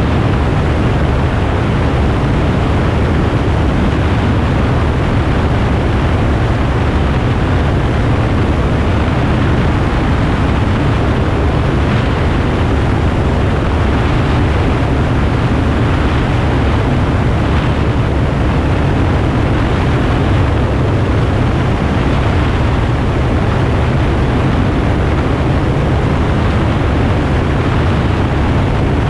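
Light aircraft in flight heard from an externally mounted camera: a steady low engine and propeller drone under loud, even wind rush.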